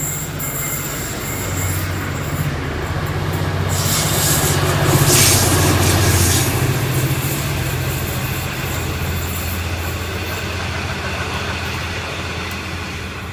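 V/Line passenger train passing: a rumble of wheels on rail over a low steady drone, growing to its loudest about five seconds in with a burst of high hiss, then slowly easing as the last carriage goes by.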